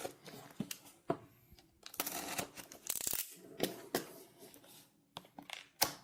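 Packaging of a toilet fill valve being handled and opened: irregular rustling and tearing with small sharp clicks and knocks.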